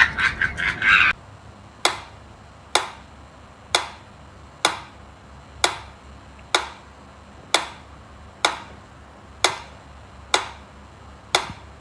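Sharp, even ticks about once a second, eleven in a row, after a loud, brief burst of rapid rattling in the first second.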